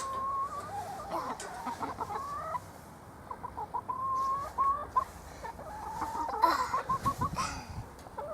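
Hens clucking and calling inside the coop: a run of short, bending calls, with a louder burst of scuffling noise about six and a half seconds in.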